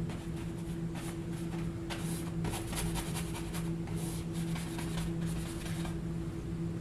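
Paintbrush dabbing and stroking acrylic paint onto a canvas: soft, short scratchy brush strokes, over a steady low hum.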